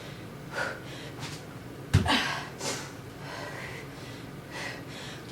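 A person breathing hard through a strenuous exercise set, with a series of short, sharp exhales and gasps. A single thump about two seconds in is the loudest sound.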